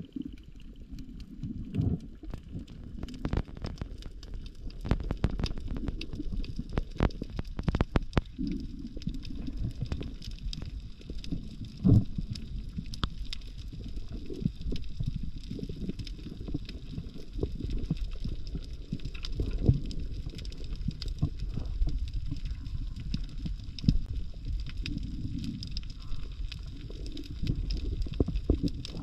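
Underwater sound through a camera in its housing: a low rumble of moving water with scattered sharp clicks and crackles.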